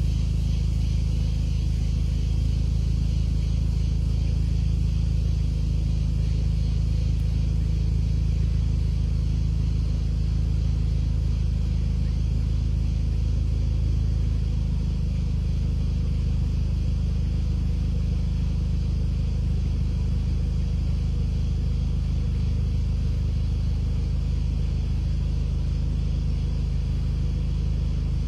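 A vehicle's engine running steadily: an even, low rumble with a faint steady hum that shifts slightly about halfway through.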